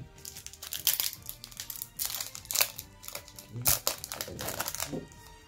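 Foil wrappers of Yu-Gi-Oh! booster packs crinkling as they are handled and torn open, in several crackly rustles that stop shortly before the end.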